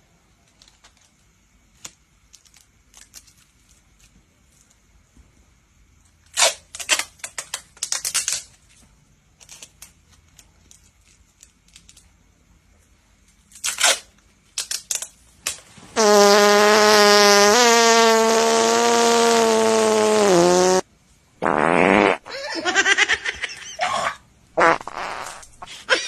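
Loud fart-like blasts: a few short ones, then one long drawn-out blast of about five seconds that slides down in pitch at the end, followed by more short rasping bursts.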